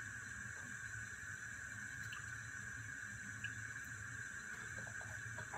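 Steady low hum with a constant high-pitched whine over it, and a couple of faint ticks.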